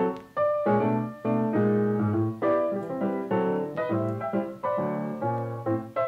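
Background piano music: a flowing run of struck notes and chords, each ringing out and fading.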